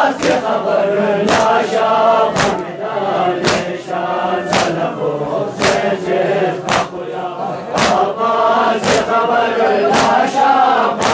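A crowd of men chants a Shia mourning lament (nauha) together. Loud unison chest-beating (matam) lands about once a second in time with the chant.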